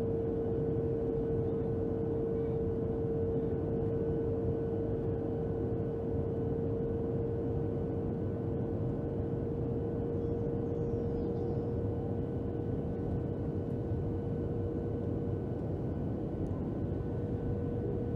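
Steady cabin noise inside a Boeing 737-700 airliner in flight. Its CFM56-7 engines and the airflow make a constant low rush, with a steady hum on one tone.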